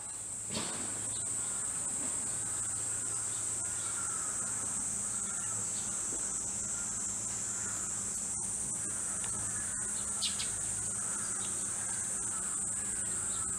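Insects shrilling in a steady, unbroken high-pitched drone.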